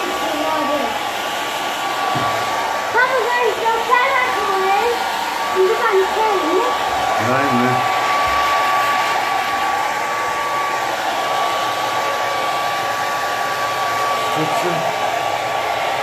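Handheld hair dryer running steadily and blowing air, with a constant high tone from its motor over the rush of air.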